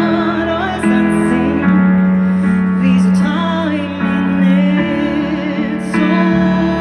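Live pop ballad played over a stadium PA: sustained piano chords under a woman singing a slow melody with vibrato, heard from within the crowd.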